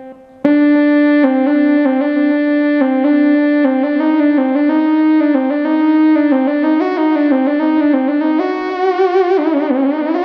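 Casio XW-G1 synthesizer playing a single-note lead melody. The notes move in steps after a brief break about half a second in, and near the end the pitch wavers and slides down and back up.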